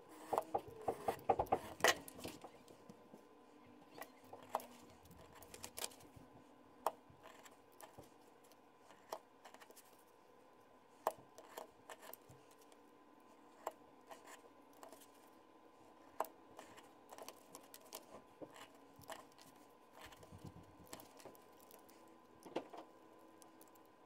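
Safety knife cutting leather along a steel rule on a cutting mat: a quick run of sharp clicks and scraping in the first two seconds, then scattered single ticks and light scraping as the leather is trimmed.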